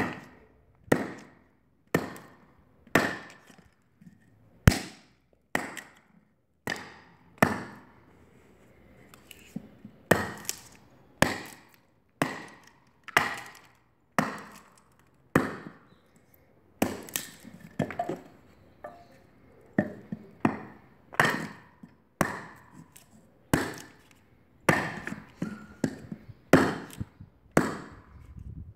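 A heavy 25 cm bush knife with a thick 7 mm blade chopping into a fairly hard wooden stake, about one blow a second with a short pause partway through. Each blow is a sharp chop with a brief ring.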